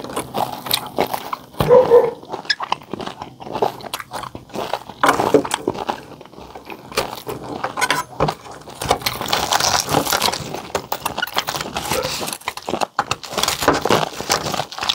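Close-miked chewing and crunching of crispy pata (deep-fried pork knuckle), with many sharp crackles. Later a serrated knife saws and cracks through the pork's crisp skin.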